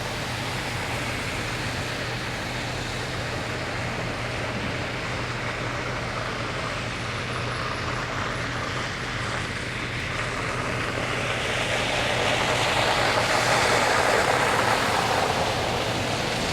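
A vehicle drives past on a wet road: its tyre hiss swells over a few seconds about two-thirds of the way through, then fades. Underneath is a steady hiss with a constant low hum.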